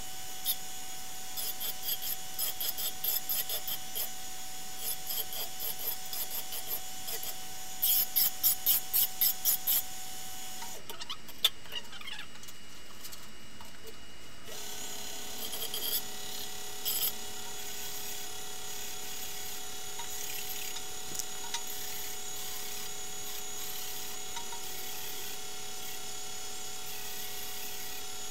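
Belt grinder running, with a stainless steel buckler dome pressed against its belt in a run of short, rhythmic grinding passes, loudest for about two seconds near the middle of the first half. Then the grinder's running sound breaks off for a few seconds and comes back as a steady run with a lower tone added.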